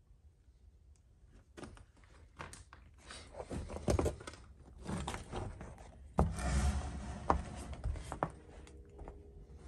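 Irregular knocks, thuds and crunching of someone moving through a room littered with debris and handling things, starting about a second and a half in after near silence.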